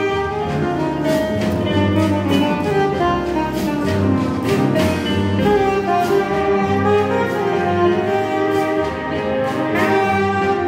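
Soprano saxophone playing a jazz melody over big band accompaniment.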